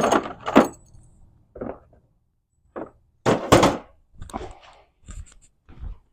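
A series of clunks and knocks from heavy metal manual-transmission parts being handled and set down, about seven in all, the loudest right at the start and about three and a half seconds in.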